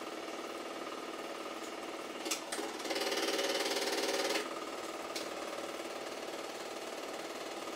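Super 8 film projector running, its motor and film transport making a steady rhythmic clatter. About two seconds in it gives a few sharp clicks and turns louder and harsher for about two seconds, as a splice between scenes passes through.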